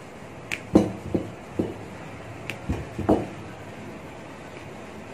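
Wooden rolling pin knocking and rolling on a stone rolling board while puris are rolled out: about seven short knocks in the first three seconds, then only a low background.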